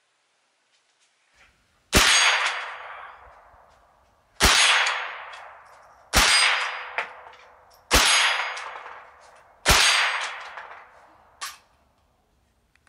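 Ruger 10/22 takedown semi-automatic rifle firing five shots of Browning 40-grain .22 LR, supersonic rounds, about two seconds apart, each sharp crack trailing off over a second or so. A shorter, lighter click follows about two seconds after the last shot.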